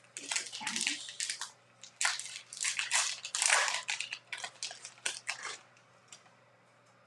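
Foil wrapper of a baseball card pack being torn open and crinkled by hand, in quick irregular crackles that stop a little before the end.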